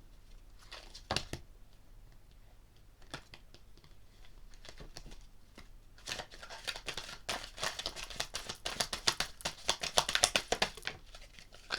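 A deck of oracle cards being handled and shuffled: a few scattered card clicks at first, then from about six seconds in a fast, dense run of cards slapping and flicking against each other.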